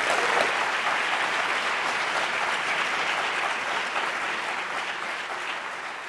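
Audience applauding, loudest near the start and slowly fading.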